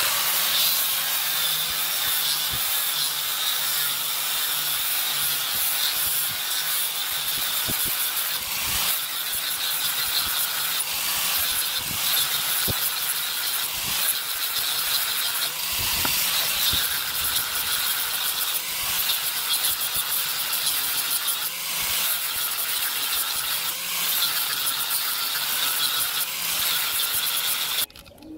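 Electric angle grinder with a sanding disc running steadily, its motor whining high as the abrasive scours the face of a wooden wheel. It stops abruptly near the end.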